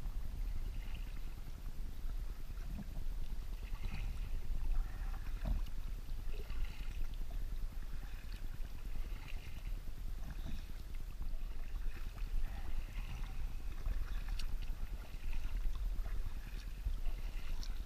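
A kayak being paddled across open water: paddle strokes splash irregularly and water laps at the hull, over a steady low rumble.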